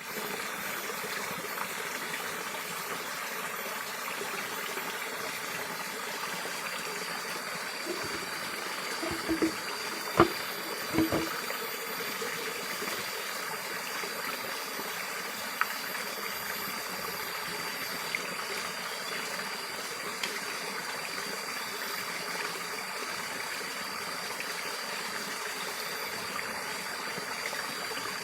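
Mountain stream running steadily, with a faint steady high tone above it. A few short knocks come about a third of the way in.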